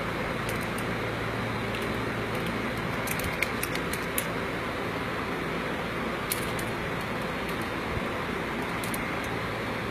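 Light metallic clicks and ticks of pliers working a nut on a threaded bolt, a cluster of them a few seconds in and a couple more later, over a steady background hum.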